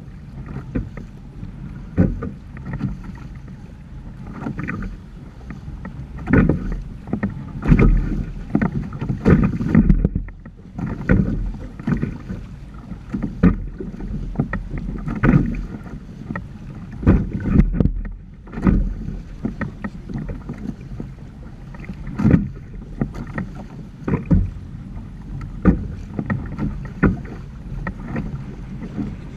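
Water slapping and splashing against the polyethylene hull of a Hobie Tandem Island sailing trimaran under way, in irregular surges every second or two over a steady rush of water.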